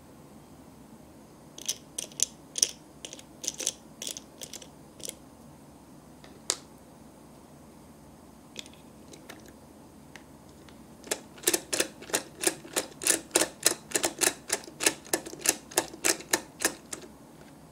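Small plastic toy parts clicking and tapping, then a fast, even run of plastic clicks, about four a second, for several seconds as the miniature toy stove's knob is turned.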